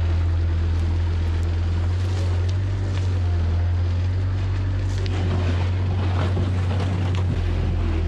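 Bobcat skid steer's engine running steadily with a deep hum while the bucket pushes through a pile of topsoil.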